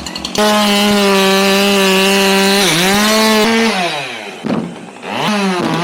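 Chainsaw running at full throttle with a steady high pitch, dipping briefly as it bites into wood about two and a half seconds in. It is then let off and winds down, followed by a few short revs that rise and fall.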